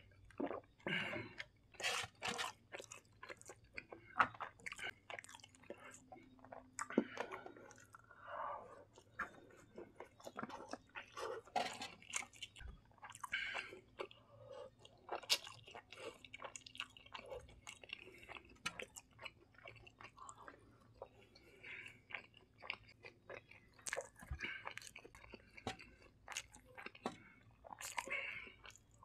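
A person chewing and slurping Samyang spicy instant noodles, with many short, irregular wet mouth clicks and smacks.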